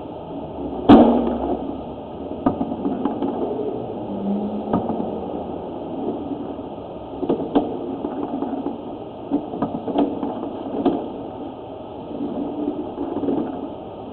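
Sewer inspection camera and its push cable being worked along a drain line: irregular knocks and clicks over a steady rushing noise, with one loud knock about a second in.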